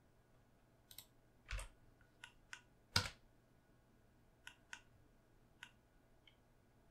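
Computer keyboard keystrokes and mouse clicks: about ten short separate clicks at uneven intervals, the loudest about three seconds in.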